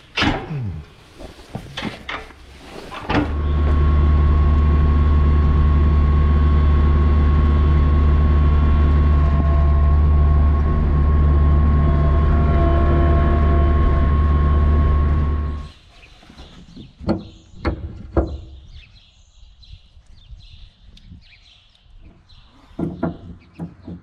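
Bobcat skid-steer loader's engine running steadily with a thin steady whine over it for about twelve seconds, starting and cutting off abruptly. A few knocks and clatters come before and after it.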